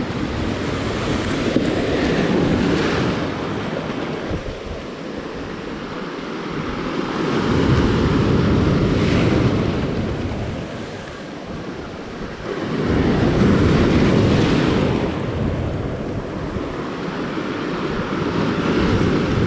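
Sea surf surging and washing over the boulders of a rock breakwater, swelling and falling back about every six seconds.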